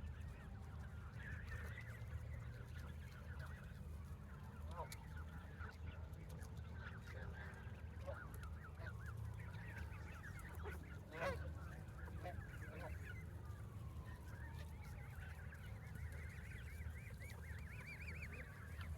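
A flock of Canada geese calling: many soft honks and chatter overlapping throughout, with one louder call about eleven seconds in.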